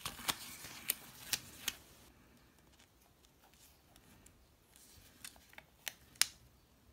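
Paper sticker sheet rustling as a planner sticker is peeled off, with a few sharp clicks. Then a quiet stretch, and a few more sharp taps near the end as long fingernails press the sticker onto the planner page; the last tap is the loudest.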